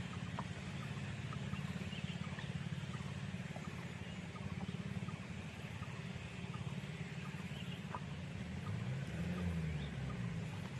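An engine running steadily with a low hum; its pitch rises and falls once near the end. Faint chirps and ticks sound over it.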